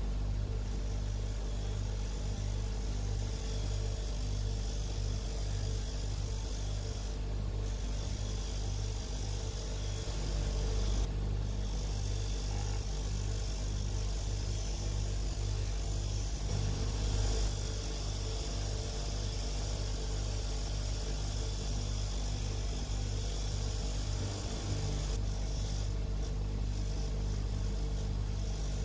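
Electric motor spinning a wire wheel, running steadily with a low hum, while a cast-iron vise part is held against the wheel to brush off old paint and rust.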